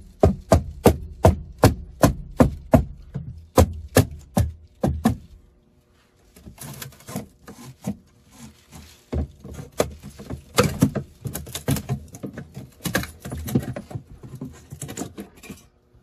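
A stapled wooden cabinet trim strip being struck with a hand tool: sharp knocks, about two to three a second, for the first five seconds. After a short pause comes irregular scraping, rattling and knocking of wood as the strip is worked loose from its staples.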